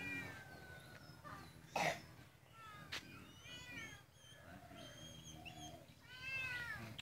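Domestic cats meowing: a falling meow at the start, a run of short calls in the middle, and a longer arched meow about six seconds in. A single short sharp noise, louder than the calls, comes just before two seconds.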